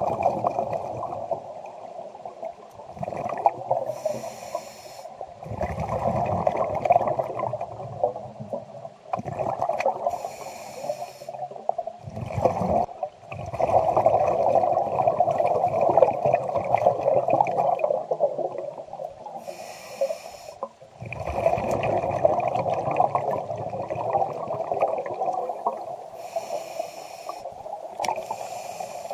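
Scuba regulator breathing underwater: a short hiss on each inhale and a long bubbling rush of exhaled air, about four breaths.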